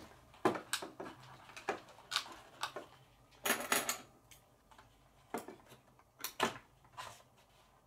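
Scissors snipping into a cardboard box, with the cardboard being handled and flexed: scattered sharp snips and crackles, and a longer stretch of cutting noise about three and a half seconds in.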